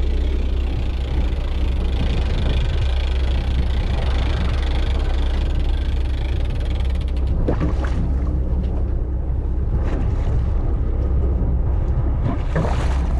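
Fishing charter boat's engine running with a steady low drone, under a hiss of wind and water. The hiss thins out about seven seconds in, leaving the drone and a few brief swishes.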